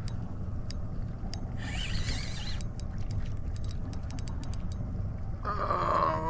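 Fishing reel clicking in irregular runs as a hooked tripletail pulls and is reeled in, over a steady low rumble.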